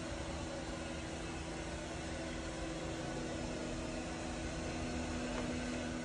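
MAMNV BR151 robot vacuum-mop running across a hardwood floor, a steady whirring hum with a low drone.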